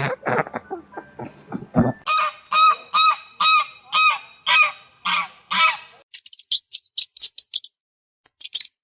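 Waterfowl calling: a regular series of about eight honking calls, one every half second or so, followed by quick, very high-pitched chirping near the end.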